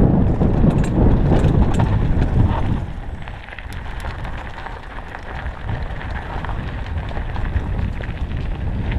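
Mountain bike riding fast down a dirt trail: wind on the microphone and tyres rumbling over the ground. About three seconds in it drops much quieter as the bike slows onto loose gravel, leaving scattered crunching and rattling clicks.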